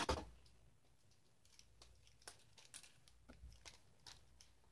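Near silence, with a few faint, short clicks and taps of plastic toy figures being handled.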